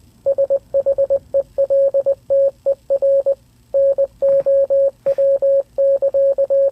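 Morse code sounded as a steady electronic beep tone by an online Morse translator: a quick run of short dots and longer dashes with gaps between letters and words, spelling out 'seek shelter now'.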